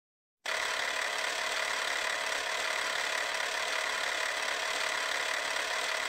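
Film projector sound effect: a steady mechanical whirring rattle that starts abruptly about half a second in.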